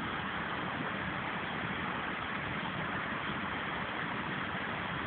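Steady, unchanging drone and hiss of the inflatable slide's electric air blower running.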